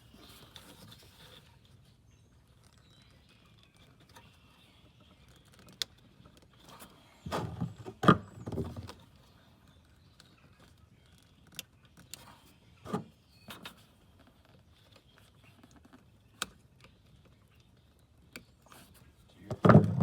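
Scattered clicks, knocks and rattles of hands working in a UTV engine bay to unplug the throttle position sensor connector, with a busy cluster of knocks about seven to nine seconds in.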